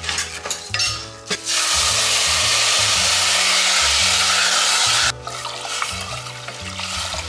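Water poured from a metal cup into a hot pot of toasted rice and garlic, sizzling and splashing. It starts about a second and a half in and stops abruptly about five seconds in.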